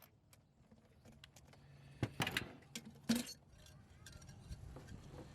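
Several short clinks and rattles of parts being handled, loudest about two and three seconds in, with a faint low hum underneath.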